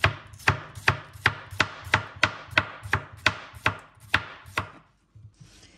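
Knife chopping salad vegetables: about thirteen steady cuts, roughly three a second, stopping a little before the end.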